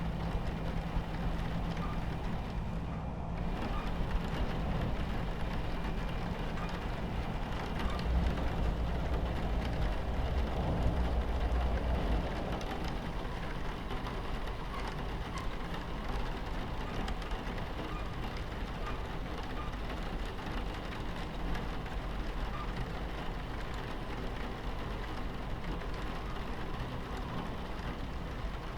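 Steady low rumble of a train running on its tracks, mixed with rain falling against the carriage window. The rumble swells for a few seconds about a third of the way in.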